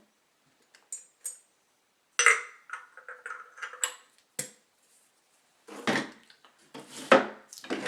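Metal parts of a pneumatic framing nailer clinking and knocking as it is taken apart by hand: a few light clicks, then an irregular run of clatters and clinks, the loudest knock near the end.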